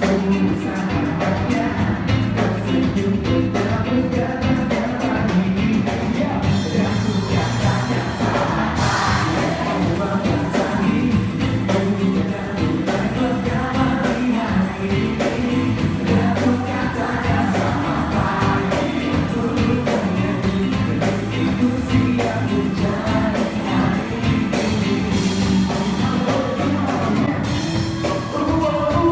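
Live pop music: a singer over a full band, with a steady bass line and a driving beat that runs on without a break.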